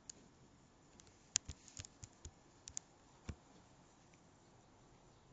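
Faint, irregular taps and clicks of typing on a tablet's on-screen keyboard, about a dozen quick strokes, most of them between one and three and a half seconds in.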